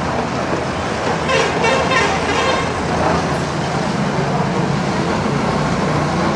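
Street traffic noise with vehicle horns tooting a couple of times about a second and a half in, then a steady low engine hum.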